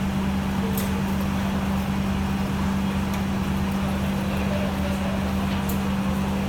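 Fire engine's engine running at a steady speed, a constant low hum with no change in pitch.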